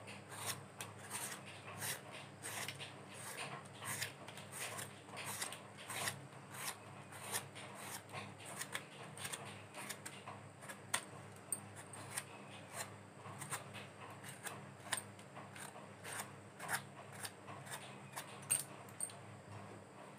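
Raw green mango being peeled by hand, a blade scraping off strips of the firm skin in quick, repeated strokes, a couple a second.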